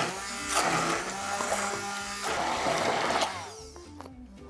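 Handheld immersion blender running in a bowl of mayonnaise, under background music; the blender cuts off a little after three seconds in, leaving the music.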